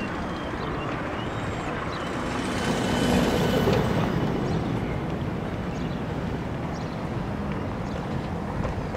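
Small fishing boat's inboard engine running as it motors through the harbour, a steady low mechanical drone that swells briefly about three seconds in.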